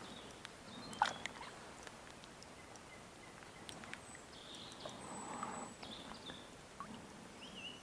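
Birds calling faintly in short high notes, with one sharp click about a second in.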